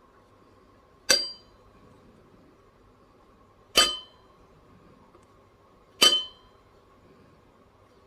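Sharp clinks of a hard object being struck, three times about two to three seconds apart, each with a short bright ring that dies away quickly; a faint steady hum underneath.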